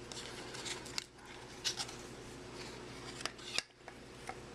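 Trading cards and their packaging being handled, with scattered light clicks and rustles over a faint steady hum.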